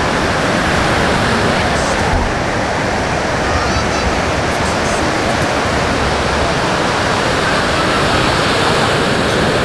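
Ocean surf washing onto a sandy beach, a steady rush of noise.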